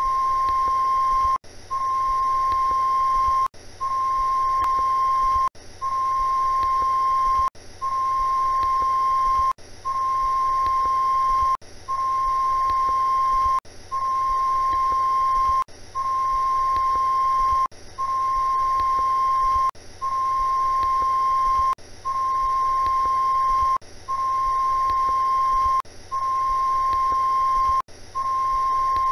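Television test-card tone: one steady, single-pitched beep that breaks off briefly about every two seconds and then resumes, over a faint low hum.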